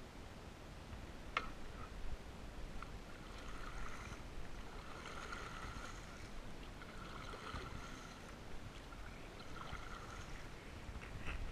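Wooden canoe paddle stroking through shallow water, with soft splashing and swishing through the middle of the stretch. A single sharp knock comes just over a second in.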